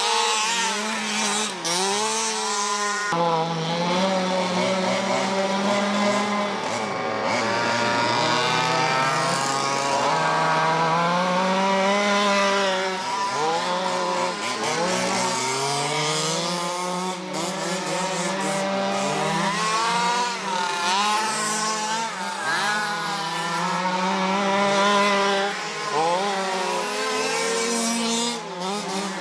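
Several quarter-scale RC cars' small two-stroke petrol engines running together, their pitches rising and falling as they rev up and back off.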